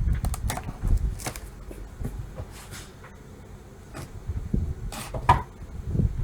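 A large cardboard box being handled and opened: scattered scrapes, rustles and knocks of cardboard, the sharpest about a second in and near the end, over a low wind rumble on the microphone.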